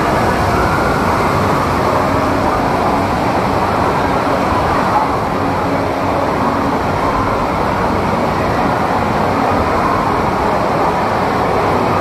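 Steady, loud rushing ambience of a water park, with no single event standing out.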